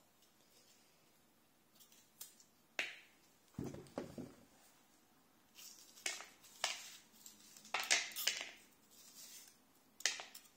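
Kitchen knife cutting butternut squash on a plastic cutting board: irregular short knocks and scrapes, with a duller thud about four seconds in and the sharpest knocks near the eight-second mark.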